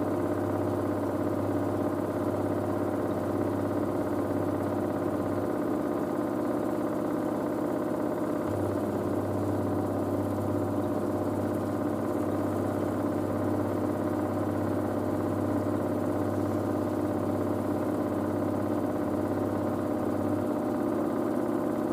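LG DirectDrive washer dryer spinning steadily at high speed in its first spin, a steady motor whine over the drum's running hum. A low hum under it drops out for a few seconds about five seconds in and again near the end.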